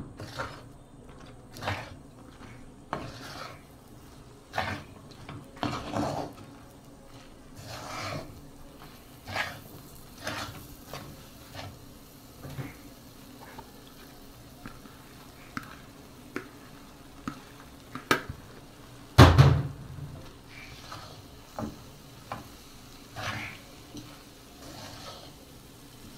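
Metal spatula stirring and scraping a crumbly laddu mixture through hot sugar syrup in a pan: irregular scrapes and clacks against the pan over a faint steady hum, with one much louder knock about 19 seconds in.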